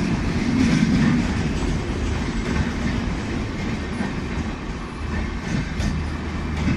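Humsafar Express passenger train running past, its coach wheels clattering over the rail joints in a steady rush of rolling noise.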